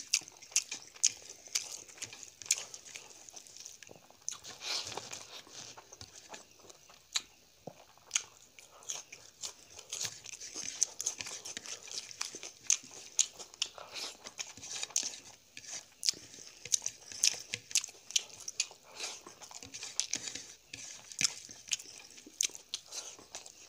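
Close-miked eating of curry and rice by hand: chewing with many sharp, irregular mouth smacks and clicks, and the soft sound of fingers gathering rice on a ceramic plate.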